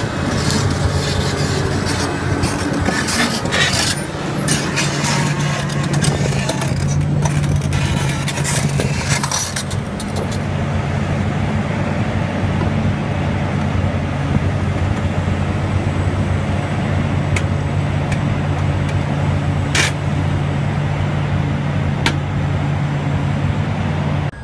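Liebherr R 984 crawler excavator's diesel engine running with a steady low drone, while its steel tracks clank and scrape as the machine moves. The clanking is dense through the first ten seconds, then thins to a few sharp knocks.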